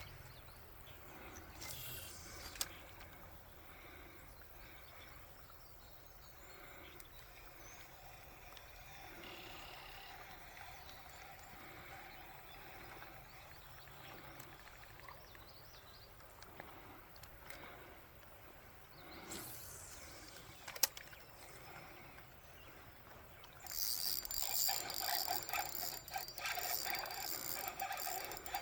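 Quiet outdoor ambience with faint bird chirps, a couple of brief swishes and two sharp clicks; then, about 24 seconds in, a fishing reel starts being cranked, a loud, rapid mechanical clicking and whirring that keeps going.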